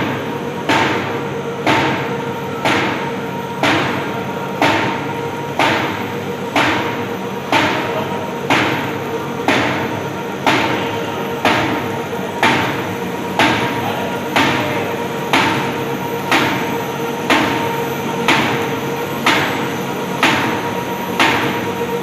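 Paper sheet-cutting machine running, its cross-cutting knife chopping the paper web with a sharp knock about once a second over a steady motor hum.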